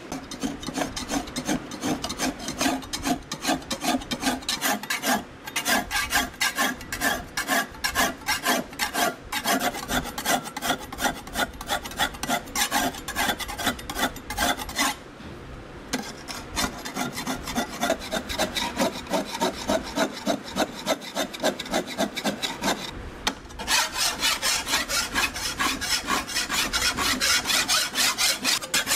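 Long flat steel file rasping across the steel blade of a Chinese kitchen knife in quick back-and-forth strokes, about four a second, as the edge is filed during sharpening. A few short breaks come between runs of strokes, and the strokes are louder and brighter in the last few seconds.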